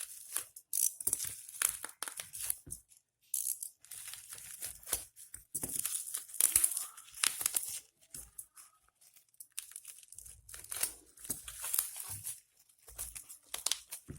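Packaging being torn and crinkled in irregular bursts as a Rubik's cube box is wrestled open; the packaging is hard to open.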